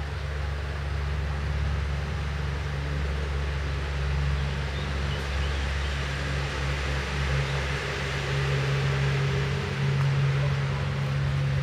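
Motor vehicle engine running with road noise: a steady low hum at two fixed pitches under a broad hiss, growing a little louder near the end.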